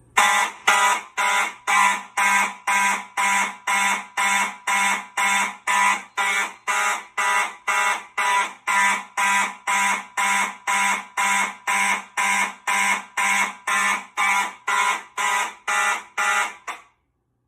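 Fire alarm horns sounding in March Time coding from a fire drill: loud buzzy blasts at about two a second, cutting off abruptly near the end.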